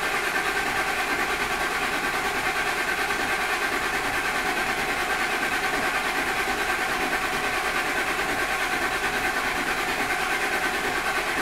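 Starter cranking a Ford 5.4-liter three-valve V8 over steadily without it firing. The engine is held in clear-flood mode with the gas pedal floored, so it only turns over to prime the new oil pump and build oil pressure.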